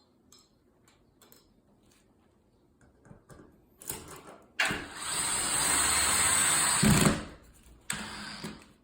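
Power drill with a Phillips bit driving a screw: a couple of short starts, then a steady run of about two and a half seconds, and a short burst near the end.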